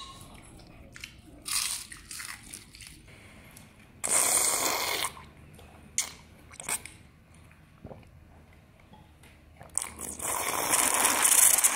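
Mouth sounds of eating: crunching and chewing on crispy deep-fried crucian carp, then long slurps of fish soup drunk straight from a bowl, loudest near the end.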